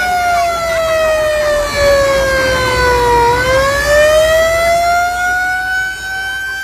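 Siren wailing: one slow glide down in pitch over about three seconds, then back up again over the next three.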